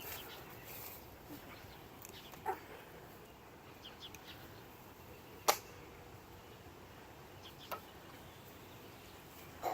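Quiet background with a few short, sharp clicks a couple of seconds apart, the loudest about halfway through, and a few faint high chirps.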